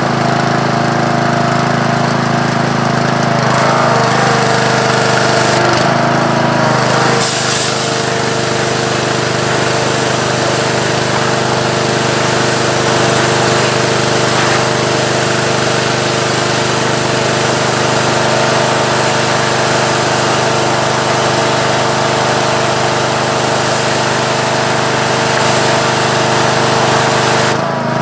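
Pressure washer running: the steady hum of its small engine under the hiss of the water spray, blasting the black gunk off hulled black walnuts. The engine note shifts about seven seconds in.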